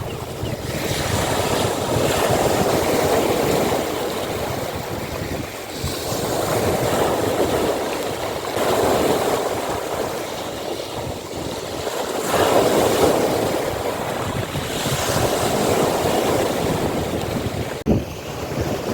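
Sea waves breaking and washing on the shore, the surf swelling and easing every few seconds, with wind rumbling on the microphone. There is a brief knock near the end.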